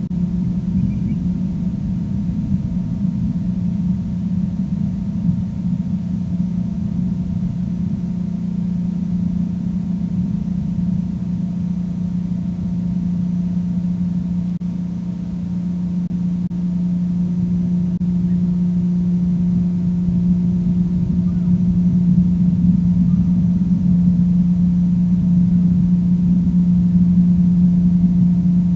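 A loud, steady low droning hum with several fainter overtones above it. It holds one pitch throughout and swells louder in the last third.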